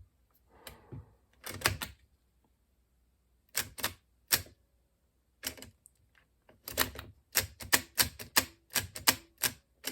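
Floppy drive eject mechanism worked back and forth by hand, giving sharp mechanical clacks: a few scattered ones at first, then a quick run of about two or three a second in the second half. The mechanism is still sticky with old grease.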